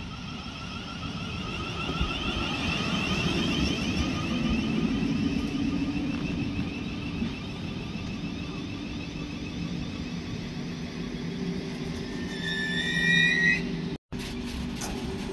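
Thameslink Class 700 electric train running into the platform and slowing: the whine of its traction motors over the rumble of wheels on rail. Near the end there is a short, loud, high brake squeal as it comes to a stand, and a steady hum follows.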